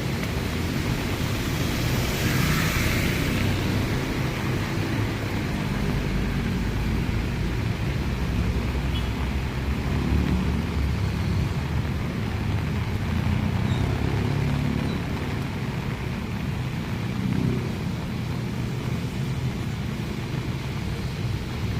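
Heavy rain falling steadily over a constant low rumble, with a brief swell of hiss about two to three seconds in.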